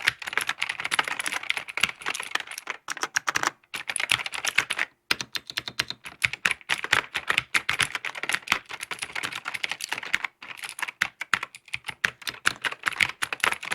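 Typing on a freshly built GMK87 mechanical keyboard with clear keycaps, picked up by a microphone lying right next to the keys: a rapid, dense run of key clacks with a couple of brief pauses.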